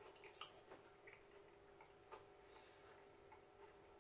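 Near silence: room tone with a faint steady hum and a few soft, irregularly spaced clicks.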